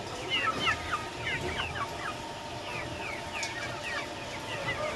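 Índio Gigante chicks peeping: many short, high, falling chirps overlapping, thickest in the first two seconds and thinning out after.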